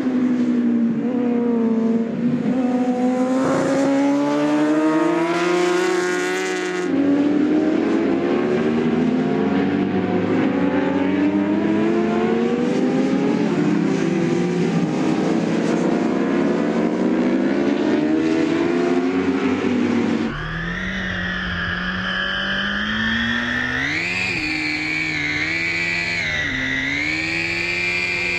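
Endurance-racing superbike engines at full speed. Their pitch rises and falls with gear changes and as bikes pass by. From about two-thirds in, an engine is heard close up from an onboard camera, its pitch climbing and dipping through shifts over low wind rumble.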